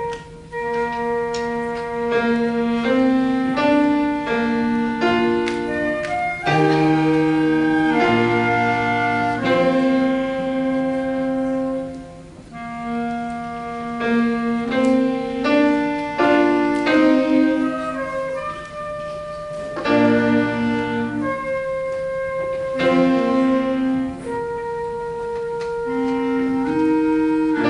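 Small student wind ensemble with piano accompaniment playing a slow piece in held chords that change every second or two, easing off briefly about halfway through.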